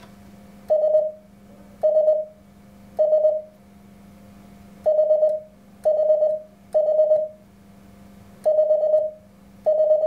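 Morse code sidetone from an Elecraft KX3 transceiver, keyed on a single-lever paddle: eight short runs of rapid dits at one steady mid pitch, each run an all-dit character such as S, H or 5.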